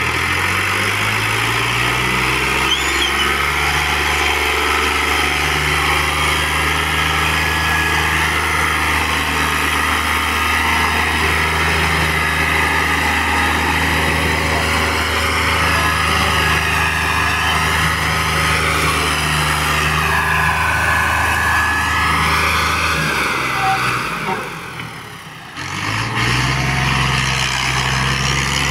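Fiat 480 tractor's three-cylinder diesel engine working under heavy load, pulling a trolley piled high with sugarcane. It revs up at the start, then runs steadily; near the end the sound drops away for a couple of seconds before the engine comes back.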